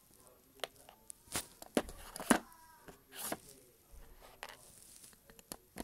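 LEGO bricks being handled and pressed together: a string of sharp, irregular plastic clicks and taps, the loudest about two seconds in.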